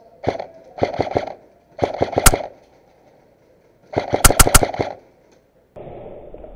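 Airsoft AR-15 rifle firing four short bursts of rapid shots, with pauses between them, echoing off the surrounding walls.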